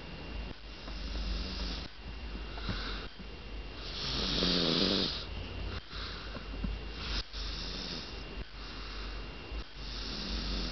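A person snoring in sleep, a breath every couple of seconds, with one louder, pitched snore about four seconds in.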